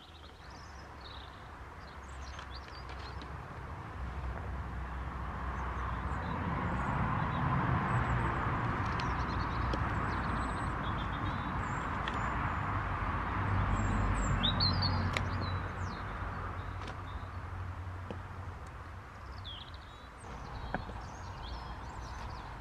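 Small songbirds chirping now and then over a broad rushing background noise with a low rumble, which swells for about ten seconds in the middle and then fades.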